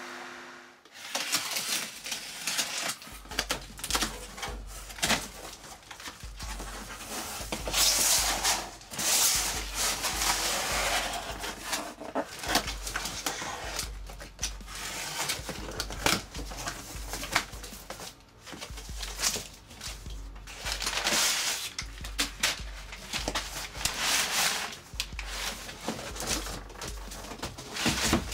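Background music with a steady bass beat, over cardboard and packing tape rustling and scraping in irregular bursts as a box is cut open and a foam-packed PC case is slid out.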